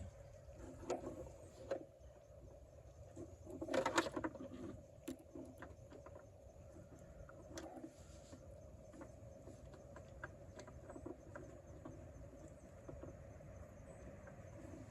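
Light clicks, scrapes and knocks of metal parts being handled as a distributor is worked into place on the engine, with a louder cluster of clinks about four seconds in.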